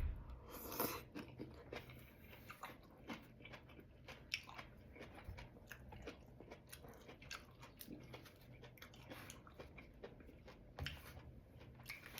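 A person chewing and biting food close to the microphone: quiet mouth sounds with many small clicks, a couple of louder ones about a second in and near the end.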